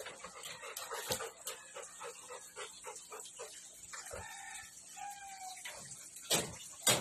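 Male dog whining and panting in quick short pulses, then letting out a couple of longer, higher whines, restless at the scent of a female dog in heat. Two sharp knocks come near the end.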